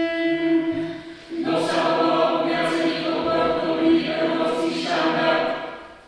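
Small mixed choir singing a short phrase in harmony, opening on one held note; the singing stops just before the end.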